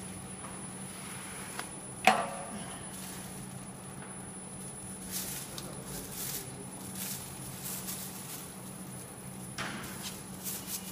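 ZX 720 gilding machine running with a steady low hum. A single sharp knock comes about two seconds in, and crackling rustles of the paper sheet and foil being handled come in the second half.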